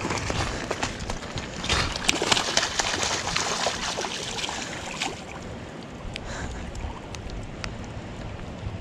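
A hooked fish thrashing in shallow water at the bank, with a run of sharp splashes over the first few seconds, then quieter lapping water as it tires.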